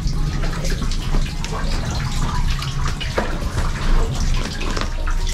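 Water trickling and splashing into a shallow rock pool, a busy, irregular patter, with a steady low rumble underneath.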